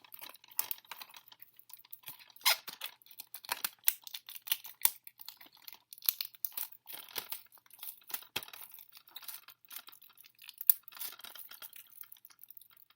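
Plastic shrink wrap being torn and peeled off a DVD case: irregular crinkling and crackling with scattered sharp snaps.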